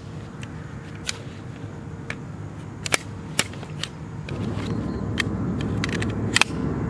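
Colt AR-15 carbine being handled to clear a jam: the magazine comes out and the action is worked, giving a dozen or so sharp metallic clicks and clacks at irregular intervals. A low rumble comes up about four seconds in.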